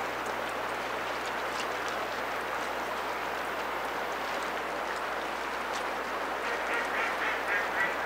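Mallard quacking: a quick run of about six quacks near the end, over a steady rushing background noise.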